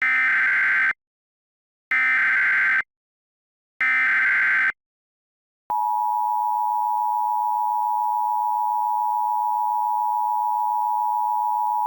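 Emergency Alert System SAME header: three bursts of modem-like data tones, each just under a second long and about two seconds apart. From about six seconds in comes the steady two-tone EAS attention signal.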